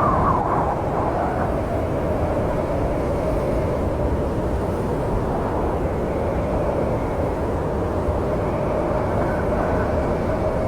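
Snowstorm wind ambience: a steady low rushing with a faint howling tone held through it.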